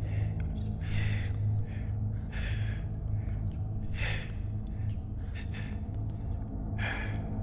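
A person gasping for breath, with a harsh breath about every second and a half. A low steady hum runs underneath.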